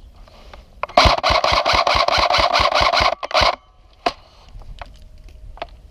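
Airsoft gun firing a rapid burst of about two and a half seconds, roughly seven shots a second over a continuous mechanical rasp, which stops abruptly. A couple of single clicks follow.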